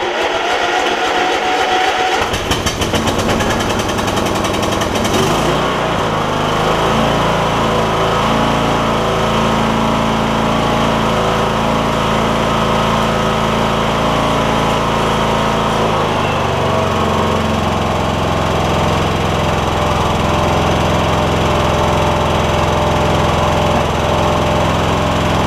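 Troy Bilt Bronco lawn tractor's Kohler Courage engine starting after sitting for years: it catches and runs roughly for the first few seconds, then settles into a steady run. Its note changes about sixteen seconds in.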